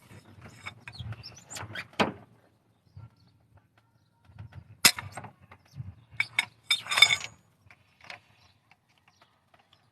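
Hand tools clinking and knocking on metal while working on tight cylinder head bolts. There are scattered irregular clicks, with sharper knocks about two, five and seven seconds in.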